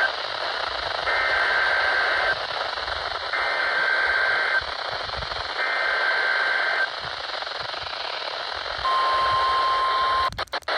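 Emergency Alert System SAME header on NOAA Weather Radio: three screechy digital data bursts, each about a second long with a second's gap between them. This is the coded header that opens an automated alert. A brief steady attention tone follows near the end, over a constant radio hiss, and a few crackling dropouts come just at the end.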